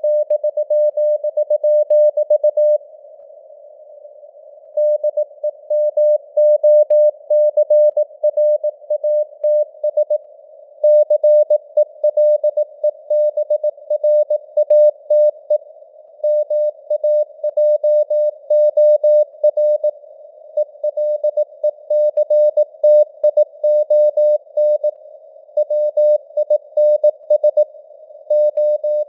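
Morse code sent at 18 words per minute: a steady mid-pitched beep keyed on and off in dots and dashes over a thin hiss of simulated radio noise. The keying pauses briefly several times, once for about two seconds.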